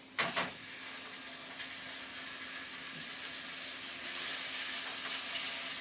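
Ground beef dropped into a hot oiled skillet, hitting the pan with a brief sizzling burst, then frying with a steady sizzle that slowly grows louder.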